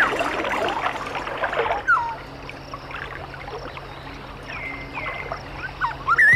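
Flowing water rushing and splashing over rocks, loudest in the first two seconds and then quieter, with birds chirping over it several times.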